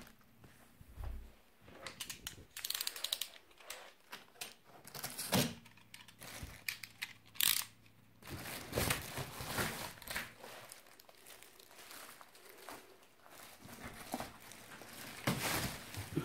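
Packaging being handled and pulled open by hand: irregular crinkling and rustling with tearing sounds and a few louder sharp bursts.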